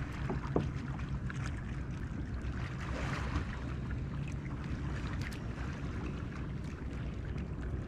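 Water and wind noise around a fishing kayak, over a steady low hum, with scattered light clicks.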